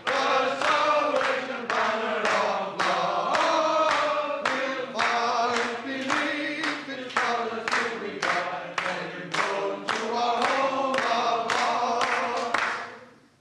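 A group of men singing a hymn together and clapping in time, about two claps a second. The sound fades out near the end.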